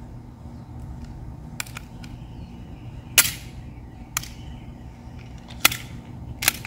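VFC Glock 18 gas blowback airsoft pistol giving about five sharp cracks and clicks, spaced unevenly, the loudest about three seconds in. The slide is dry and sticking, not returning to battery, for want of lubrication.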